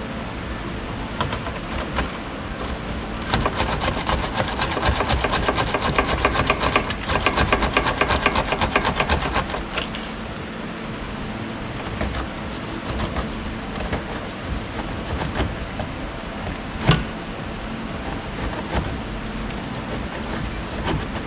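Steel wire brush scrubbing the threaded end of a car's anti-roll bar link to clean the threads, in rapid scratchy strokes that are most intense for several seconds in the first half and lighter afterwards.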